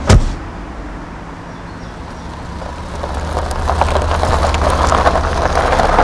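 A car door shuts with a single sharp slam, then the taxi's engine idles with a steady low hum. From about three seconds in, a louder, busier layer with small clicks builds over the hum.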